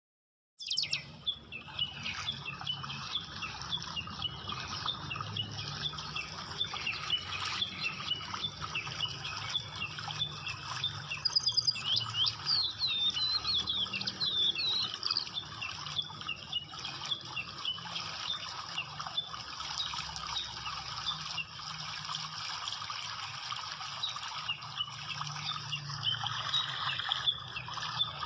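Continuous splashing and sloshing from a mass of carp and koi crowding and thrashing at the water surface, with many short high chirps through it.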